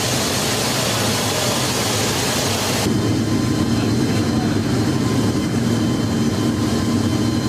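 Loud, steady cabin noise inside a C-17 Globemaster III cargo hold in flight: its four turbofan engines and the rush of air. About three seconds in, the hiss dulls and a lower hum comes to the fore.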